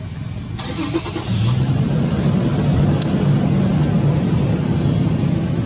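Motor vehicle engine running close by, growing louder about a second in, then holding at a steady low hum.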